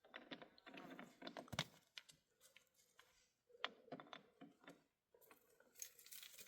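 Near silence, broken by scattered faint clicks and knocks, the sharpest about one and a half seconds in, with faint, indistinct voices.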